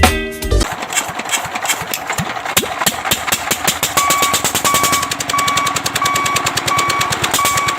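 Music cuts off just after the start. A rapid, knocking engine clatter follows. From about halfway, a steady electronic beep joins it, repeating about every two-thirds of a second for six short beeps.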